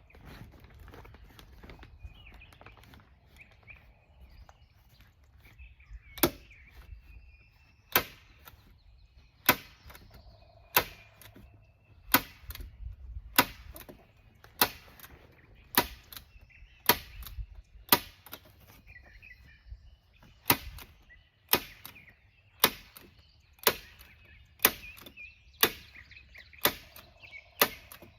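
A hand-operated heavy-duty staple gun driving staples into the greenhouse frame. It fires a sharp snap about once a second, some twenty times, starting a few seconds in.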